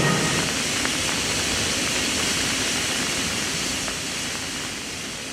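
Steady hiss of steam from the C57 steam locomotive, slowly fading toward the end.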